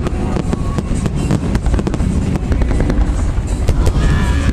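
Fireworks display: an irregular, rapid string of bangs and crackles over a continuous low rumble.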